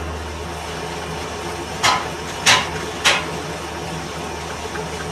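Lathe running with a steady low hum. About two seconds in come three short hissing sounds, a little over half a second apart.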